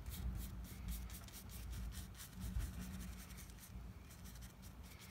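Paintbrush bristles scratching and dabbing across watercolour paper in quick repeated strokes, about five a second, thinning out after about three and a half seconds. A steady low hum runs underneath.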